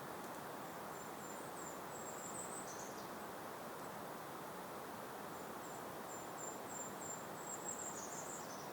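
A small songbird sings two high, thin phrases, each a string of short notes that ends in a quick downward slur, over a steady outdoor hiss of gentle breeze.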